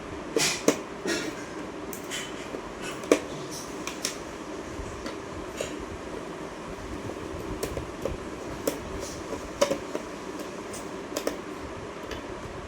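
Irregular small clicks and taps, as of a wall clock's parts being handled and worked on, over a steady background hum.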